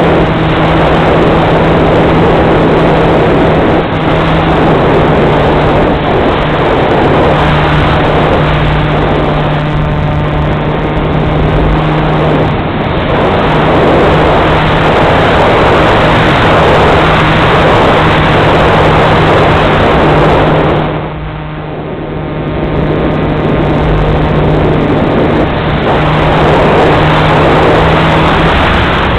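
Pusher propeller and motor of an FPV Falcon delta-wing model plane in flight, a steady drone heard close up from the onboard camera under heavy wind rush. About two-thirds of the way through, the wind noise briefly dips.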